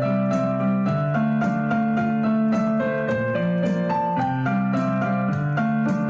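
Background piano music, its held notes changing in an even rhythm.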